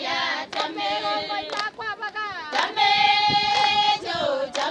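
High voices singing, holding long notes, with a few sharp claps.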